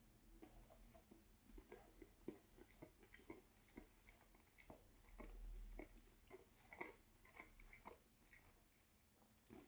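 Faint chewing of a bite of chicken sub sandwich: soft, irregular small clicks and squishes of bread, chicken and vegetables in the mouth.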